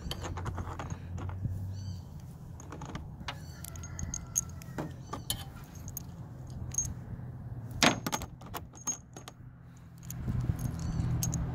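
Loose rusty steel bolts clinking against each other and the metal cowl grille as they are picked up and shuffled by hand: a run of small irregular metallic clicks, with one sharper clink about eight seconds in.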